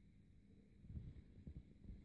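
Near silence: faint low rumble with a few soft low bumps, such as a handheld phone microphone picks up, and a faint steady hum.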